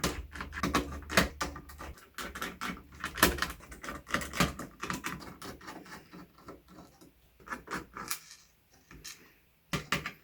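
Irregular clicks, taps and rattles of hard plastic from handling a mechanical keyboard while its case screws are taken out. A low hum sits under the clicks for the first two seconds or so.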